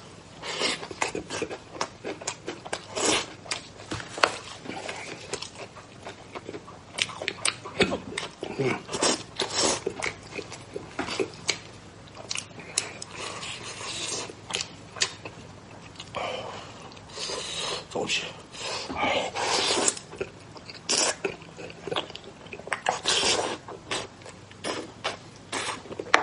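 Close-up eating sounds of a person chewing soft braised meat with the mouth full: wet, sticky chewing and lip smacking in many irregular short clicks, with a few longer sucking, slurping stretches.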